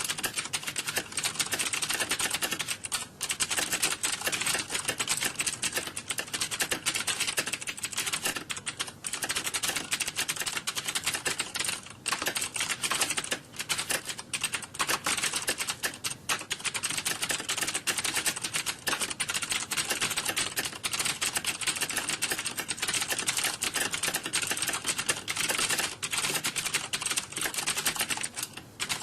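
Fast, continuous computer keyboard typing: dense key clicks with only a few brief pauses.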